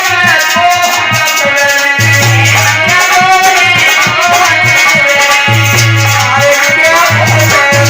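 Loud music with a wavering melody over fast, steady shaker-like percussion and drums, and a recurring low bass note.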